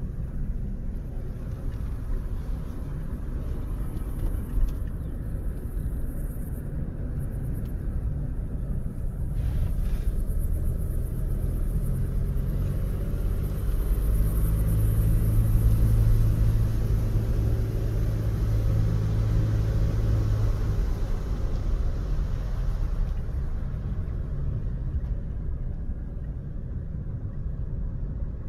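Steady low rumble of a motor vehicle running, with a hum that swells louder about halfway through and then eases off.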